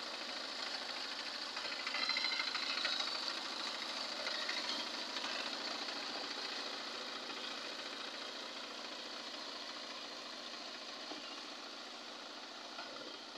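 Two-wheel power tiller's single-cylinder diesel engine running with a rapid, steady knock while it tills a flooded rice paddy, fading gradually as it moves away.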